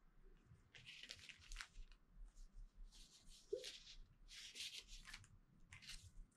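Faint rustling of sticker sheets and their packaging being handled, in several short bursts.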